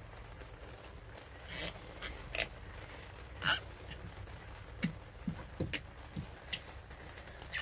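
Rubber terminal cap being forced along a thick battery cable. There are a few sharp scrapes, then several short rubbery squeaks in the second half as it drags and sticks on the cable.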